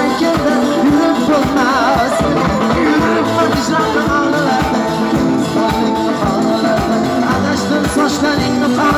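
Live Uzbek band music with a steady percussive beat from a doira frame drum and a drum kit, keyboard lines, and a male singer's ornamented, wavering vocal line.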